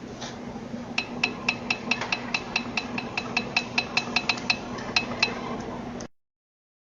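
Toyota Corolla engine running with a sharp metallic knock, about five a second and slightly uneven, over a steady hum; the engine knock. The sound cuts off suddenly near the end.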